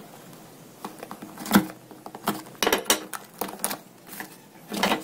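A small cardboard box being opened by hand, its seal cut and its end flap pulled open: an irregular string of sharp clicks, scrapes and cardboard rustles.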